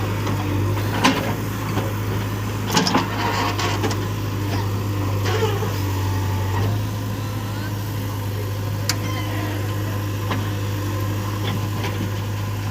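Heavy diesel engine running steadily with a constant low hum, broken by a few short sharp knocks and clanks, the strongest about three seconds in.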